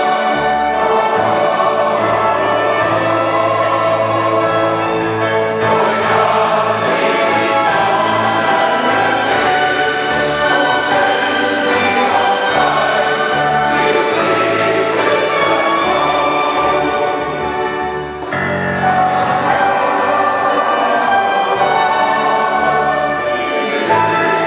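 Male voice choir singing with an accompaniment of strings, flute and keyboard. The music eases briefly between phrases about 18 seconds in, then resumes.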